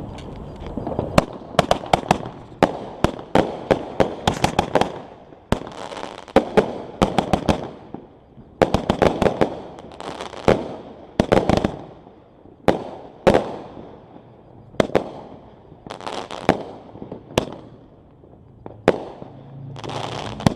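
Two consumer fireworks cakes, Gangsta Blast and Galactic Glitz, firing together: runs of sharp shots and bangs, densest in the first few seconds, with spells of crackling hiss from the bursts in between.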